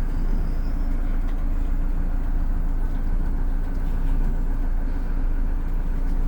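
Diesel engine of a GM New Look bus running steadily with an even low hum.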